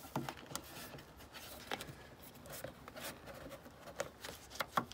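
Hands handling the rubber trunk-opening weatherstrip beside a Honda Civic's taillight: faint rubbing and scattered small clicks as the seal is pressed and tucked into place, with a few sharper clicks near the end.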